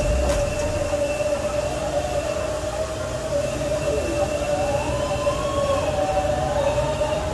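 Steady industrial machinery drone with a constant whine, and a fainter tone that rises and then steps back down about halfway through.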